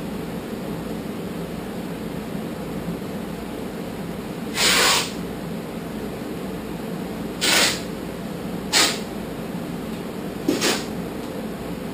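Masking tape pulled off the roll in short rips, four of them a second or a few seconds apart, the first the longest, over a steady low hum.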